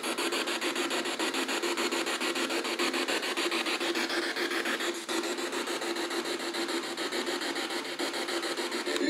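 P-SB7 spirit box sweeping through FM radio frequencies, played through an external speaker: a harsh hiss of static chopped into rapid, even pulses as it jumps from station to station.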